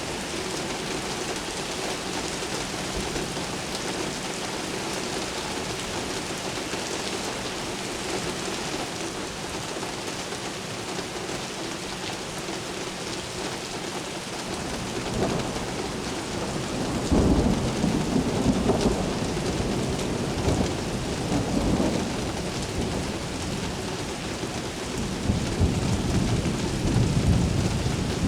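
Steady rain falling on city surfaces, with thunder rolling in about halfway through. The thunder builds to a loud, low rumble that rolls on in waves, then rumbles again near the end.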